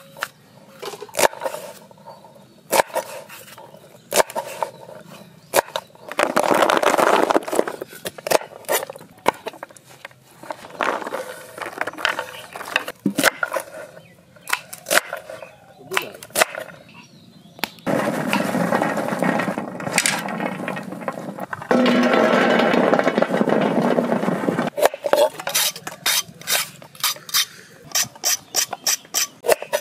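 Kitchen knife chopping yardlong beans on a wooden cutting board: sharp knocks at uneven intervals, coming faster near the end. Three stretches of steadier sound, a few seconds each, break in between.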